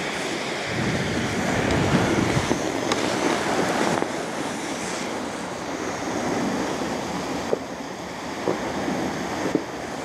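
Calm sea surf washing onto a sandy beach, with wind rumbling on the microphone, strongest in the first few seconds.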